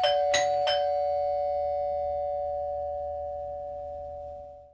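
House chime doorbell going ding-dong: a few quick strikes on two notes in the first second, then both notes ring on and slowly fade away.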